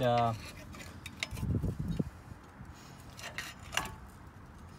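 Metal scraping and rubbing from a screwdriver prying at a seized rear disc-brake caliper against a rusty rotor, with a low rumbling scrape about a second and a half in and a few light clicks later on.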